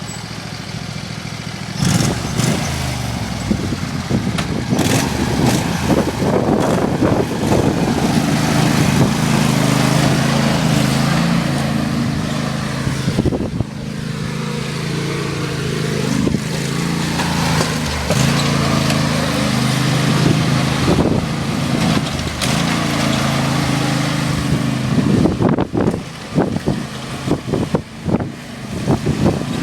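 Riding lawnmower's small engine running hard under load on a hill climb, picking up about two seconds in and staying loud, with frequent sharp knocks and rattles, thickest near the end.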